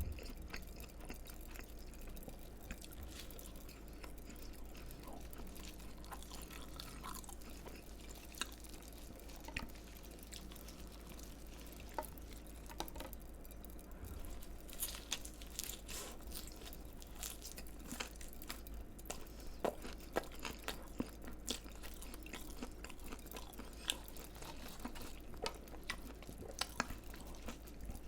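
Close-miked chewing and biting of crunchy fried food, with irregular crisp crunches and small wet mouth sounds throughout.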